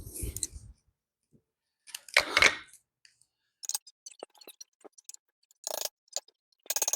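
Small metal disc-brake hardware (caliper, pads and anti-squeak clips) handled and fitted by hand: a brief rustle, a scraping rattle about two seconds in, then a run of sharp metallic clicks and clinks.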